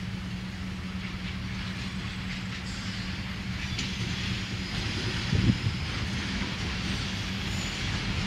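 Diesel locomotive hauling a cement freight train, approaching. Its engine drones steadily and slowly grows louder as it nears, with a brief louder sound about five and a half seconds in.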